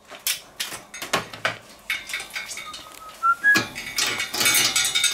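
Metal chains and the steel grate of a swing grill clinking and rattling as the grate is swung over the fire. A short rising whistle sounds about three seconds in.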